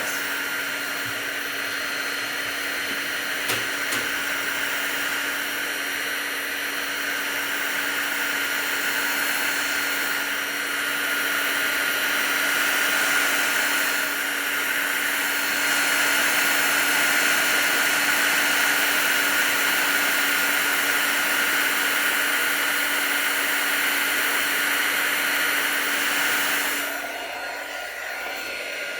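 Electric hot-air blower running steadily, a fan hum with a constant whine, as it heats and shrinks glue-lined heat-shrink tubing onto a metal lock-pick handle. About 27 seconds in the sound drops and thins.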